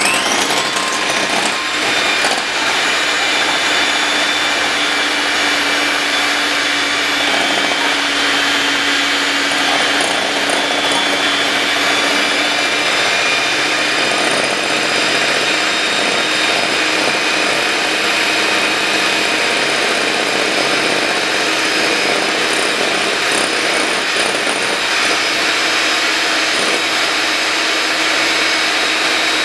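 Electric hand mixer switched on and running steadily, its beaters whisking egg whites in a glass bowl. The motor's whine settles within the first second or two. The whites are being beaten toward a meringue-like foam.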